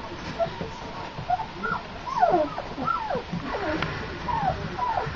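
A litter of 25-day-old flat-coated retriever puppies whimpering and squeaking: many short, high cries that drop in pitch, overlapping more often from about two seconds in.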